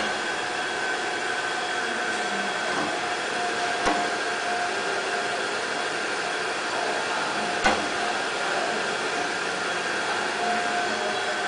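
Strip measuring and rewinding machine running, its motor-driven reel winding black strip onto the spool with a steady whine. Two sharp clicks come about four seconds in and again near eight seconds in.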